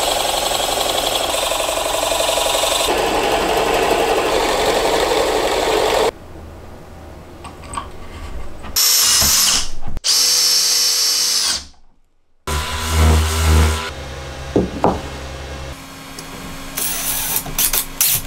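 Power tools at work in a run of short clips: a loud steady run for about six seconds, then a high steady whine lasting a few seconds that cuts off, with sharp clicks and knocks near the end.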